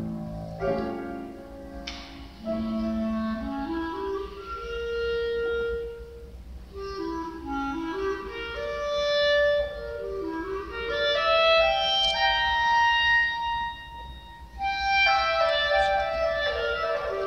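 Clarinet playing a melody with grand piano accompaniment: flowing stepwise runs and held notes. A louder, busier passage begins near the end after a brief lull.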